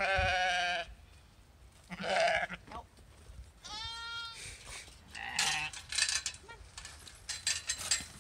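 Sheep bleating several times, the loudest call right at the start and others about two and four seconds in, with some clicks and rattles in the second half.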